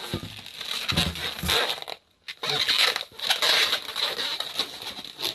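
Long latex twisting balloons rubbing and squeaking against each other and against hands as they are twisted together and handled. There is a brief silent break about two seconds in.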